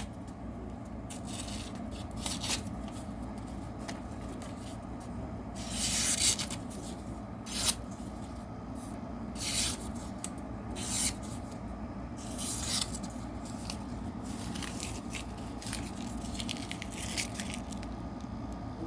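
QSP Penguin pocket knife blade slicing through paper in a series of short hissing cuts, about nine spread unevenly over the stretch. The clean cuts show a sharp factory edge.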